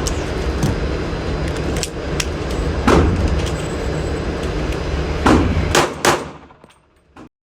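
A series of sharp knocks, a few of them much louder than the rest, over a steady low rumble; the sound fades and cuts off near the end.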